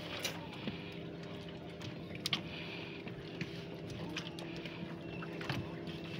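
A steady low engine hum, with a few sharp clicks and knocks scattered through it.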